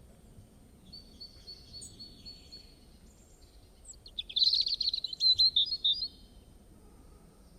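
Small songbird calling: a run of thin, high, evenly spaced chirps, then a louder, fast twittering trill from about four to six seconds in.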